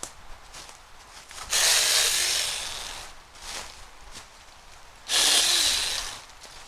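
Small 6-inch battery-powered mini chainsaw running twice in short bursts, each cut lasting about a second and trailing off as the motor winds down.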